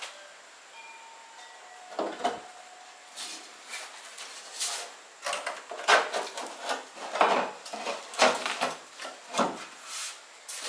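Irregular knocks, clunks and scrapes of a steel Holden HK–HG front mudguard being handled and seated on a metal panel stand, loudest about six seconds in.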